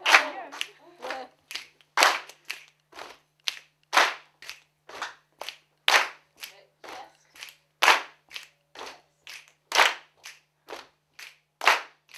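A group of people clapping hands in unison to a repeating body-percussion rhythm, about three claps a second, with a louder accented clap about every two seconds.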